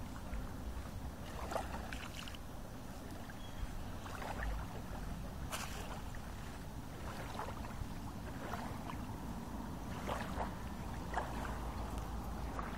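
Small lake waves lapping at the shoreline, with a few soft, short splashes, over a steady low wind rumble on the microphone.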